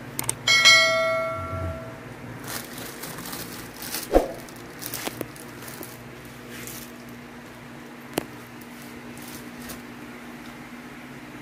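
A sharp metallic clang that rings on for about a second, from the metal top case being knocked as it is handled. It is followed by a loud knock about four seconds in, rustling from around the case, and a single click near eight seconds.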